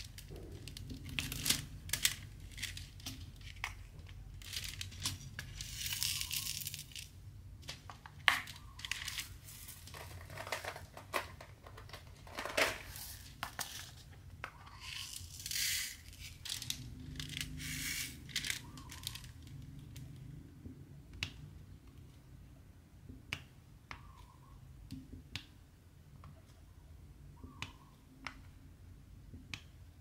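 Diamond painting at close range: a drill pen picks up small plastic drills and presses them onto the sticky canvas with many light, irregular clicks and taps. Several longer rattling, rustling stretches come from the drills being shaken and stirred in the plastic tray.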